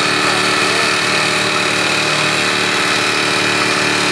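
Opel Vectra car engine running steadily, an even unbroken hum.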